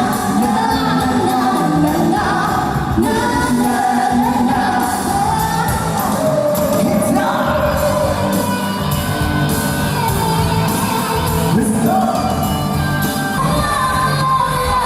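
A singer singing a pop song over backing music, holding long notes.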